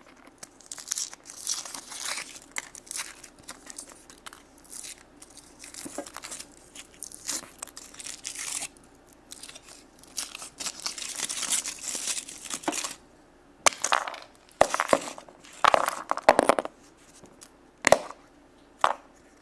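A crinkly wrapper being torn and crumpled as a Monster High surprise egg is unwrapped, followed near the end by several sharper, louder plastic clicks and snaps as the egg's contents are handled.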